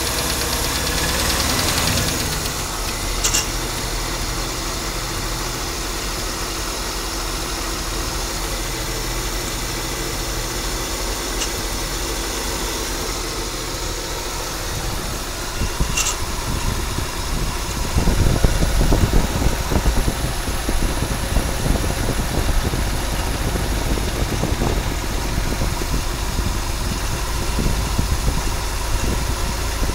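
230 inline-six engine running at idle with a grinding noise whose cause the owner cannot identify. About eighteen seconds in it gets louder and rougher.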